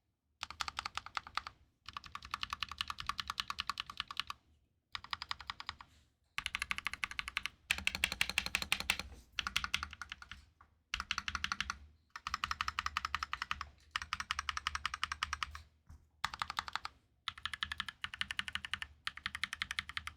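Fast typing on a freshly assembled LK67 mechanical keyboard: rapid key clicks in bursts of a second or two, separated by short pauses.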